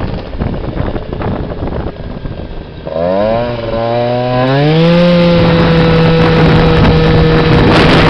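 Tuned two-stroke scooter engine, fitted with a Stage6 Racing kit and an Athena Evo expansion exhaust, under way with wind rushing past the microphone. About three seconds in its buzzing note comes up and climbs in pitch, then holds a steady high note at high revs.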